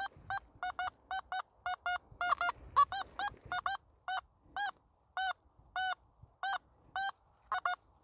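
Nokta Makro Simplex metal detector beeping on a buried metal target: about two dozen short tones of the same pitch, some in quick pairs and some single and a little longer, as the coil is swept back and forth over the spot. It is a solid, repeatable signal.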